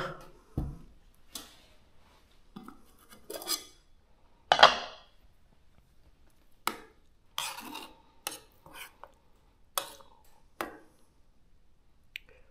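A cooking pot and utensils being handled: short separate clinks, knocks and scrapes of metal, with a low thump near the start and the loudest clank about four and a half seconds in.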